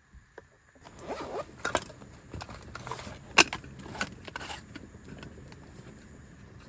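Nylon tent zipper being pulled: a rasping run with a few sharp clicks, lasting about four seconds and starting about a second in.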